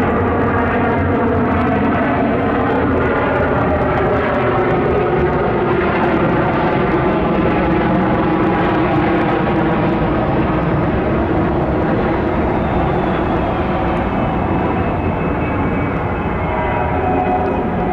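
Boeing 717-200's two rear-mounted Rolls-Royce BR715 turbofans at take-off thrust during the take-off roll: a loud, steady rush of jet noise with several steady tones running through it.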